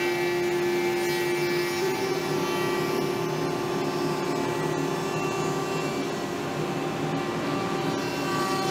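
Router motor running steadily under load, a high whine whose pitch dips and rises slightly as the cut loads and eases.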